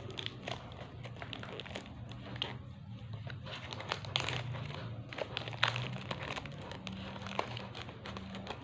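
Plastic parcel wrapping and packing tape crinkling and rustling as it is handled and cut open with scissors, with many small irregular clicks and snips.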